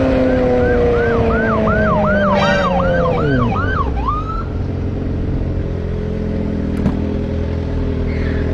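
A police siren gives a short burst of quick yelps, about two to three sweeps a second, and stops about four seconds in. Under it a vehicle engine slows, its pitch falling, then settles to a steady idle.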